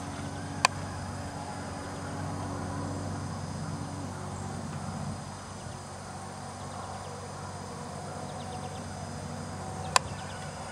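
A steady low engine hum runs throughout, with two sharp clicks, one just after the start and one near the end.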